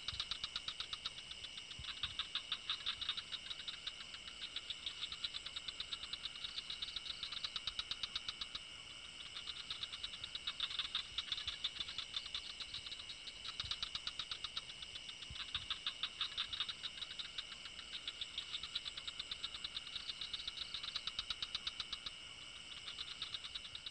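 Faint night chorus of frogs and crickets: rapid, high-pitched pulsing chirps that come in repeated trains over a steady background trill.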